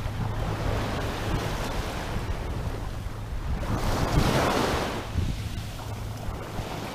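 Small surf washing up a sandy beach, with wind on the microphone; a wave rushes in louder about four seconds in.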